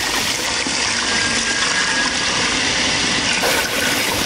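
Second extract of coconut milk poured in a steady stream into a pan of ada and melted jaggery, a continuous splashing gush of liquid.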